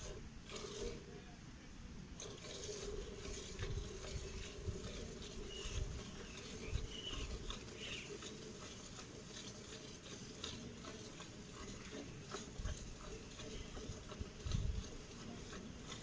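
Hand-milking of a Haryana desi cow: short jets of milk squirting into a steel pail in a quick, steady rhythm.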